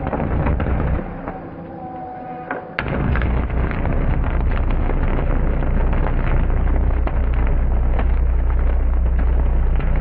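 Electric arcs drawn across a high-voltage substation switch, burning on all three phases: a loud, steady low buzz with crackling. It starts abruptly about three seconds in.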